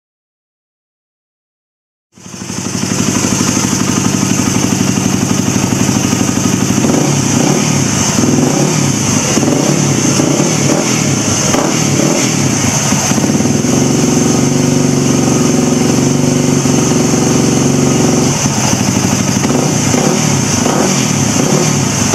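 Yamaha WR250X's 250 cc single-cylinder four-stroke engine running through a Dubach Racing NS-4 slip-on exhaust. It starts about two seconds in and runs loud, with the revs rising and falling a few times.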